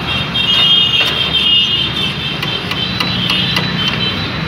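Knife tapping on a steel plate while cutting a shallot: a string of sharp clicks from about two seconds in, over steady road-traffic rumble. A high steady whine is heard through the first two seconds and briefly again later.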